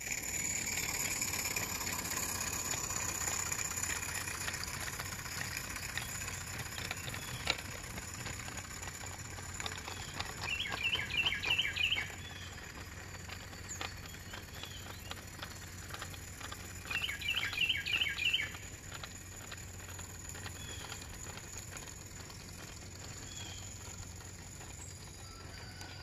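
A songbird sings twice, about ten and seventeen seconds in, each time a short phrase of quick repeated notes. Under it is the faint clicking of a small live-steam Regner Heisler garden-railway locomotive running along the track.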